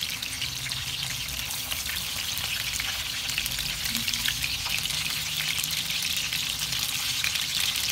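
Oil sizzling and crackling steadily around chicken mince kebab patties shallow-frying in a non-stick pan as they are turned over.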